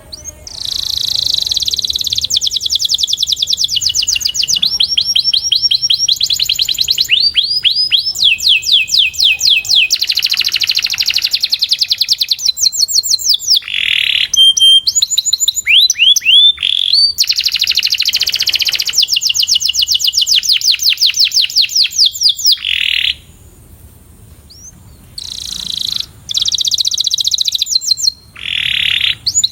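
Domestic canary singing a long song of rapid trills and rolls, each phrase a fast run of repeated notes that changes to a new one every second or two. The song breaks off for about two seconds near the end, then resumes in short phrases. It is a 'puxada' training song, used to teach young canaries to sing.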